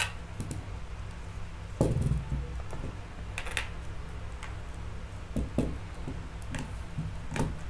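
Plastic ball-jointed legs of a gorilla-style flexible tripod being bent and handled: scattered short clicks and rattles, with one heavier knock about two seconds in as it touches the wooden table. A steady low hum lies underneath.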